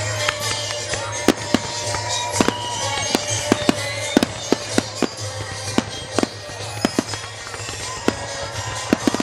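Aerial fireworks shells bursting: a rapid, irregular series of sharp bangs and crackles, coming thicker near the end.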